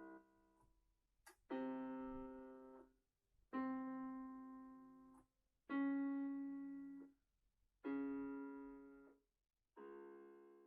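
Piano playing five slow chords, one struck about every two seconds, each held and fading away before the next. There is a short click just before the first chord.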